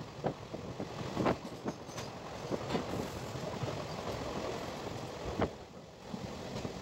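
A passenger train running along the track, heard from inside a coach at an open window: a steady rumble of wheels on rail with irregular clicks and knocks from the running gear.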